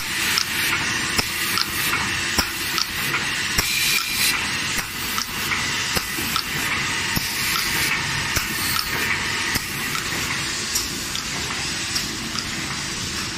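Five-colour automatic tube screen printing machine running: a steady hiss with sharp mechanical clicks a little under two a second as its stations cycle.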